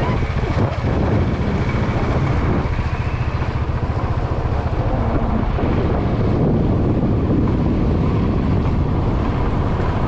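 Royal Enfield motorcycle engine running with a steady low beat as the bike is ridden, with wind noise on the microphone.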